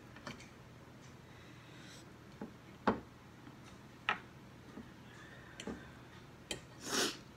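A metal fork clicking against a plate while cutting fish: a few sharp, separate clicks more than a second apart, then a brief louder noisy sound near the end.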